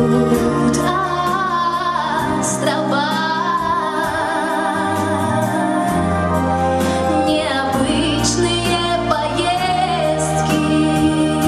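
A woman singing a slow pop song with vibrato, accompanied by bass and a steady beat.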